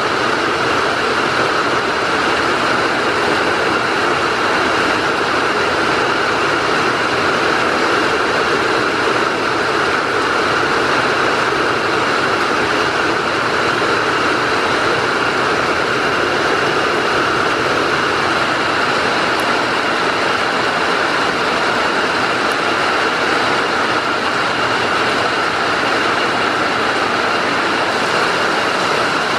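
Heavy rain falling steadily: a loud, even hiss with no letup.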